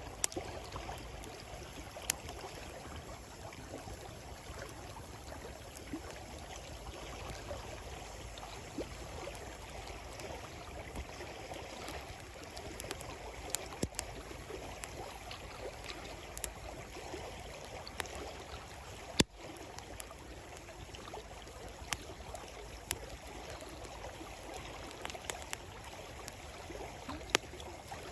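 A river running over shallow rapids with a steady rush, while a wood campfire crackles with scattered sharp pops, the loudest about two-thirds of the way in.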